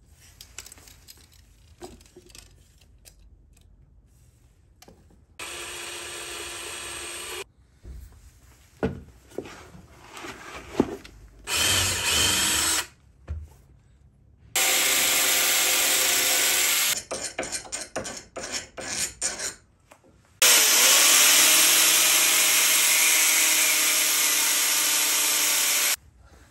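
A handheld power tool working plastic tire levers, run in four bursts: short runs of about one to two seconds, then a last, loudest one of about five seconds that settles in pitch as it starts. Clicks and knocks of handling come between the bursts.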